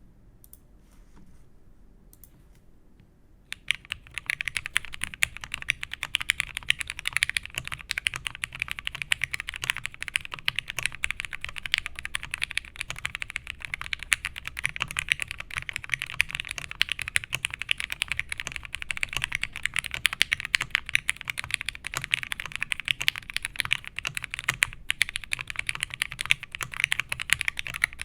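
Continuous fast typing on an OTD 356.2 mechanical keyboard. It has vintage Cherry MX Black linear switches lubed with Krytox 205g0, a polycarbonate half plate and dye-sub keycaps. The typing starts about three and a half seconds in.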